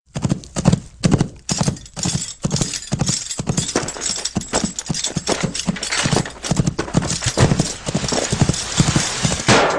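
Horse hoofbeats, a fast dense run of hard clopping knocks over a rushing noise, cutting off suddenly near the end.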